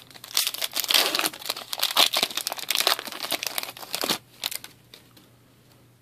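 A foil pack of 2013-14 Upper Deck SPX hockey cards being torn open, the wrapper crinkling and crackling for about four seconds before it stops.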